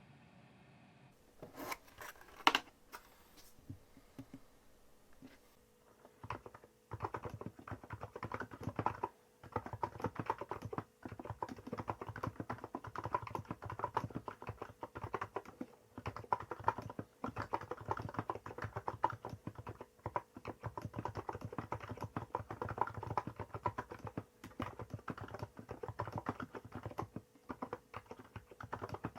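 Typing on a Hansung GK868B electrostatic capacitive (non-contact) keyboard with 50 g switches and Apple-style keycaps. A few scattered key strikes come in the first seconds, then steady, fast typing runs from about six seconds in.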